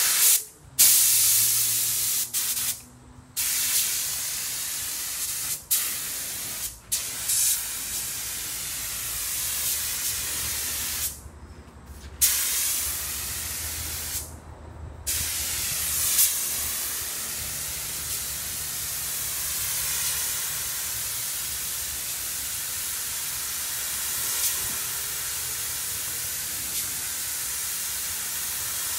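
Compressed-air gravity-feed paint spray gun hissing steadily as it sprays paint onto a car body panel. The hiss stops and restarts about four times as the trigger is let go between passes.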